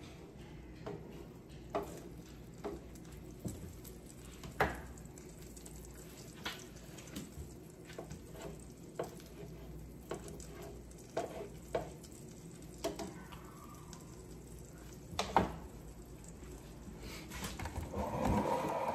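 French toast frying in butter in a non-stick skillet: a low, steady sizzle broken by scattered light clicks and taps as a spatula nudges the slices. A louder rustle comes near the end.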